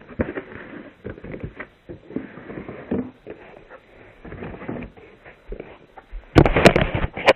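Irregular rustling, scraping and knocks from a shipping package being opened and carded figure packages being handled. About six seconds in, much louder, close handling noise begins as the camera is picked up.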